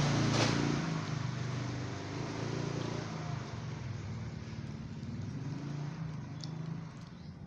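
Motor vehicle engine running as it passes, a low wavering hum with hiss that slowly fades away.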